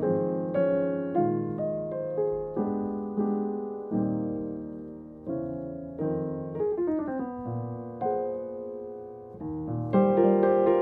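Jazz piano played solo: chords struck about once a second, each left to ring and fade, with a falling run in the middle and fuller, louder chords near the end.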